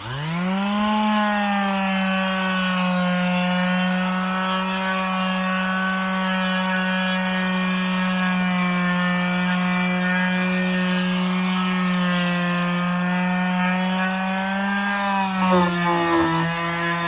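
DeWalt palm sander switched on and spinning up, then running steadily with a steady hum while it sands 80–100 grit over hardened Bondo putty on a wooden deck joist. Its pitch drops a little near the end as the sander is bearing down.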